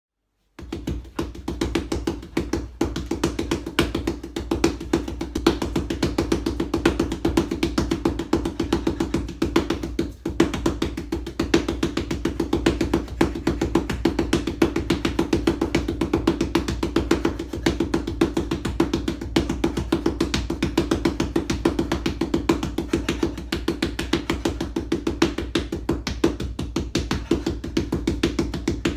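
Wing Chun chain punches landing on a canvas wall bag: a rapid, even stream of fist thuds, about six or seven a second, starting about half a second in.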